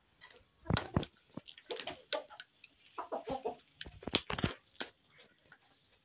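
A flock of chickens, black Australorp hens among them, clucking in short irregular bursts while feeding. Several sharp knocks come through, the loudest about a second in and about four seconds in.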